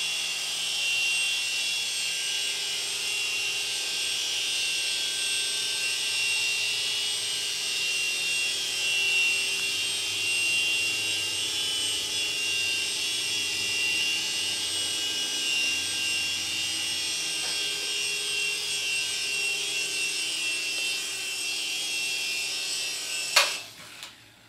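Mini RC helicopter's small electric motors and coaxial rotors whining steadily in flight. Near the end there is a sharp knock and the whine cuts off as it sets down on the floor.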